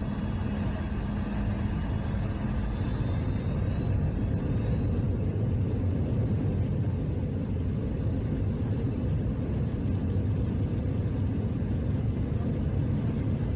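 Jet airliner heard from inside the cabin on its landing roll: a steady deep rumble of engines and wheels on the runway, with a thin high whine that rises about four seconds in and then holds.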